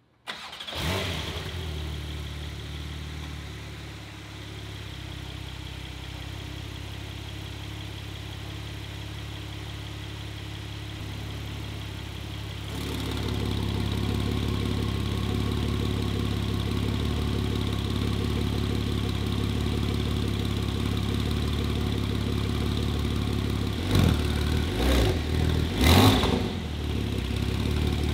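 Porsche 911 Turbo S twin-turbo flat-six with a Capristo valved exhaust starting up with a brief flare in revs, then settling into a steady idle. The idle gets louder about halfway through, and near the end there are about four quick throttle blips before it drops back to idle.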